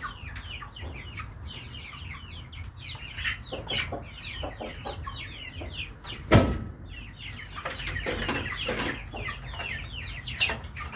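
A flock of kienyeji chickens clucking, with many short, quick calls overlapping throughout. A single sharp knock about six seconds in is the loudest sound.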